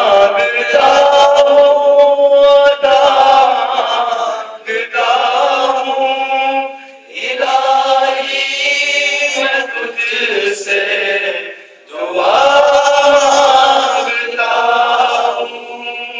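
A man singing a hamd, an Islamic devotional hymn in praise of God, solo and unaccompanied. He sings in four long, ornamented melodic phrases, with short breaks for breath between them.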